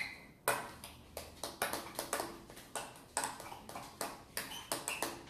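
Metal spoon clinking and scraping against a glass bowl while stirring thick slime mixture of glue and shaving foam: repeated irregular taps, a couple a second.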